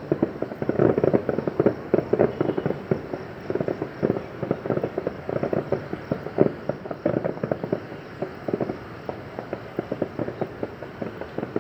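Fireworks going off in rapid, irregular bangs and crackles, thinning out somewhat after about nine seconds.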